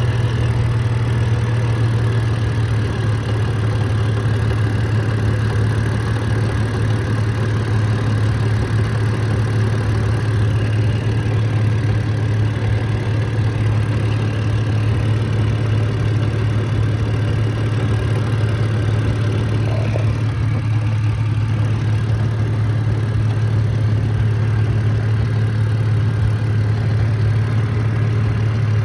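BMW N52 3.0-litre straight-six engine of an E90 330i idling steadily, making a noise its owner finds strange.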